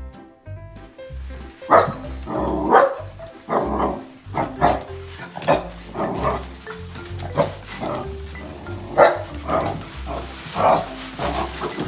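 Pembroke Welsh corgi barking over and over in short, sharp barks, starting about two seconds in, over background music with a steady bass beat.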